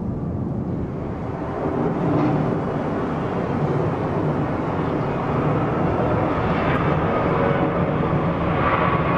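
Jet engines of a Boeing 757 airliner on the runway: a steady rumble that builds about two seconds in, with a whine coming up near the end.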